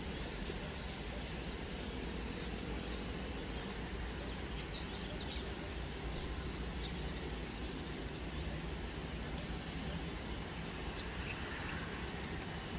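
Airbus A330-300 taxiing at idle thrust, a steady low rumble. Over it runs a constant high insect drone, with a few short bird chirps.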